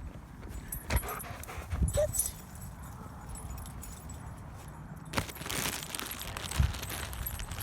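Chesapeake Bay retriever giving a brief whimper, amid a few knocks and a rustle near the end.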